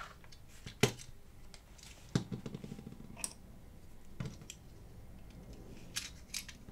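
About half a dozen separate light clicks and taps of a slim metal tool and the small diecast casting being handled, as the drilled-out rivet is picked clear and the baseplate of a Matchbox Cadillac Ambulance is worked loose from the body.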